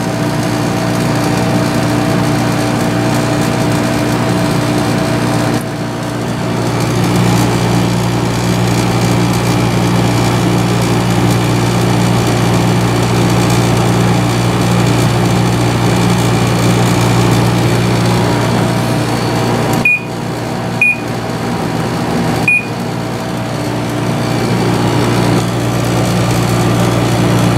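10,200 BTU Samsung window air conditioner running with a steady, loud hum. The hum dips briefly about six seconds in, then comes back stronger. Near the end, three short high beeps sound from its control panel.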